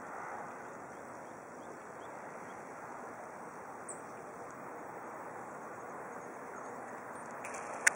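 Steady outdoor background noise picked up by a compact camera's built-in microphone. A faint, short, high chirp comes about four seconds in, and a single sharp click comes near the end.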